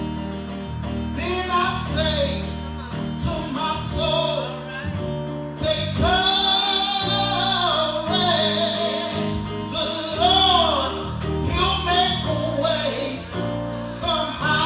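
Church music: male and female voices singing a song with instrumental accompaniment that includes guitar.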